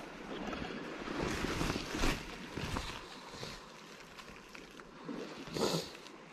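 Rustling and scuffing of someone moving over wet sand and crouching, with wind on the microphone. A short, louder scrape comes near the end.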